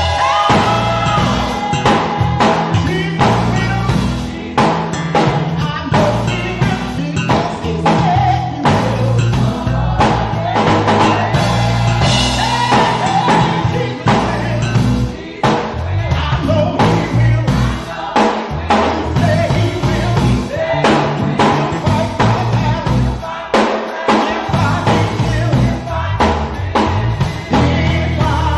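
Gospel praise band music with a drum kit keeping a steady beat under bass and singing.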